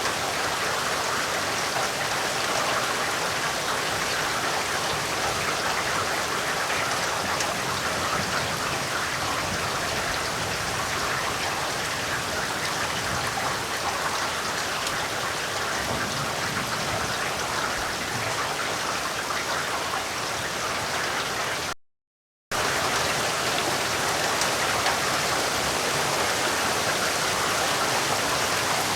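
Heavy rain falling steadily: a dense, even hiss of raindrops. The sound cuts out completely for under a second about three quarters of the way through, then resumes.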